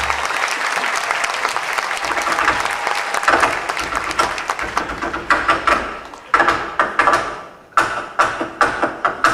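Audience applause for the first few seconds, giving way about three seconds in to sharp, separate percussive strikes falling into a rhythm. These are the first beats of the next flamenco number.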